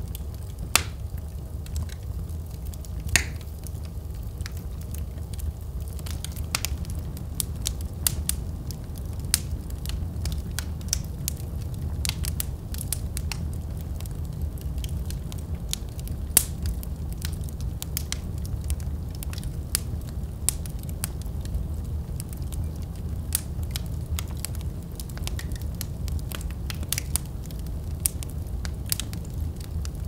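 Wood fire burning in a fireplace grate, crackling with frequent irregular sharp pops over a steady low rumble of the flames; a few louder pops come about a second in, about three seconds in and around the middle.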